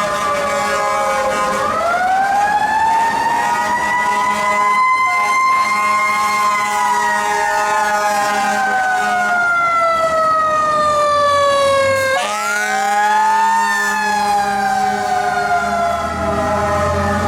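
Federal Q2B mechanical siren on an FDNY rescue truck wailing: it winds up slowly to a high peak, then coasts down in a long falling tone. About twelve seconds in it is wound up again sharply to a shorter peak and falls once more, starting another rise near the end.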